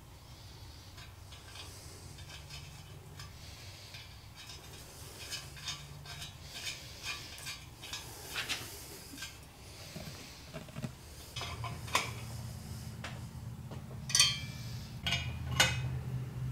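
Small metal clinks and taps of oxygen sensors being threaded by hand into exhaust header pipes and snugged with an open-end wrench. The sharpest clicks come near the end, and a low hum comes in partway through.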